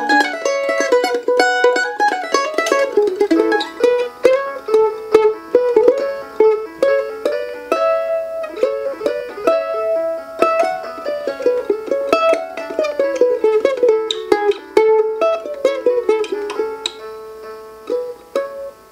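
Several mandolin parts playing an instrumental tune together, with quick picked melody notes over strummed chords. The playing winds down and stops near the end.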